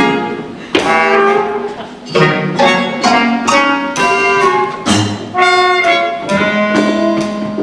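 Jazzy show-tune orchestral music led by brass and saxophones, played in sharp, accented chords with held notes between them: an instrumental dance break.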